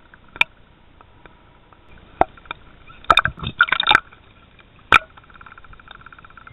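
Underwater sound through a submerged camera: scattered sharp clicks and knocks, a dense burst of clattering about three seconds in, then a steady buzzing near the end.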